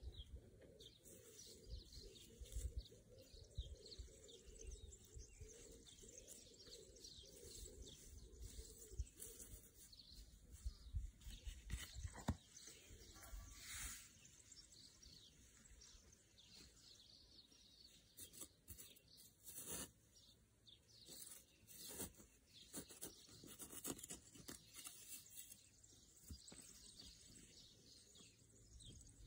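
Faint rustling and scraping of dry cut grass and soil as hands work them, with scattered small clicks and soft thumps.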